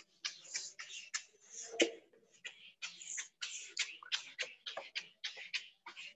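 A whiteboard eraser rubbed back and forth across a whiteboard, in quick, even wiping strokes at about three a second.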